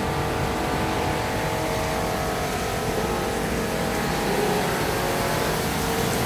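Carpet washing machinery running steadily: a motor hum with several steady tones over a low rumble.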